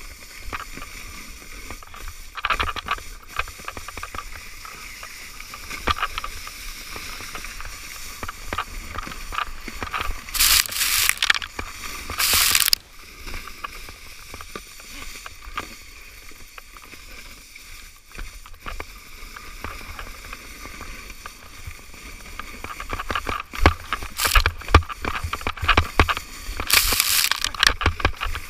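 A sled sliding fast over packed snow: a steady scraping hiss with rattling bumps, and loud rushes of hiss about ten to thirteen seconds in and again near the end.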